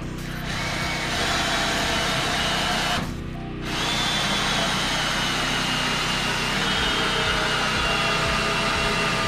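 Power drill running under load, driving screws into wooden framing, with a steady high whine. It runs for about three seconds, stops briefly, then runs again for the rest of the time.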